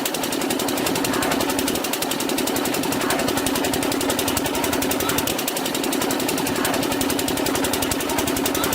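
An engine or motor running steadily, with a fast, even chatter over a constant hum.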